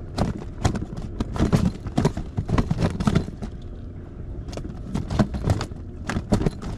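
Close handling noise: a quick, irregular run of clicks, taps and scrapes as fishing tackle and a worm bait container are handled.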